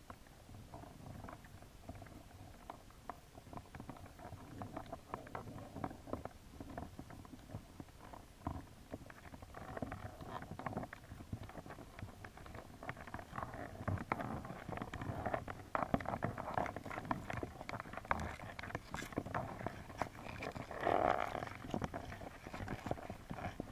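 Signal crayfish moving about inside a plastic mesh trap, heard underwater: dense, irregular clicking and scraping of shells and claws against the plastic and each other, busier and louder near the end.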